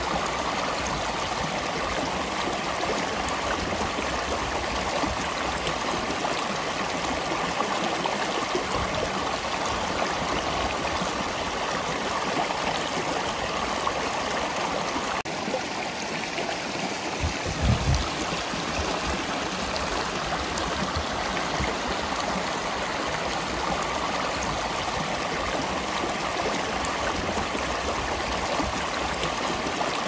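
River water flowing and rushing steadily. A brief low thud stands out about 18 seconds in.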